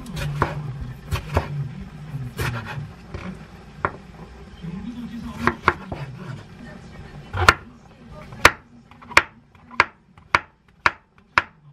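Chef's knife cutting a tomato into chunks and then slicing a king oyster mushroom on a wooden cutting board. The blade knocks sharply on the board, irregularly at first, then about two strokes a second in the second half as the mushroom is sliced.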